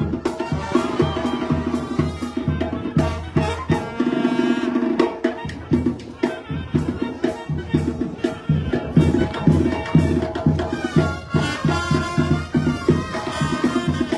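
Sinaloan banda (brass band) playing live: sustained brass and tuba lines over a steady, evenly repeating drum beat.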